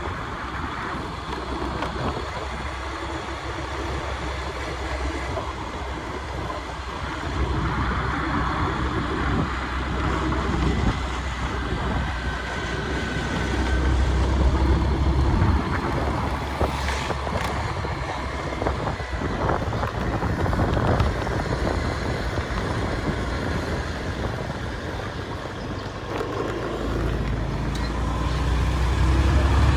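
River water rushing steadily, with low rumbling swells about halfway through and again near the end.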